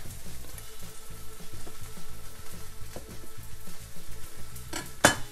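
A knife slicing through a grilled chicken breast held with tongs on a plastic cutting board, with a crackling, sizzle-like noise. One sharp knock of the blade or tongs on the board comes about five seconds in.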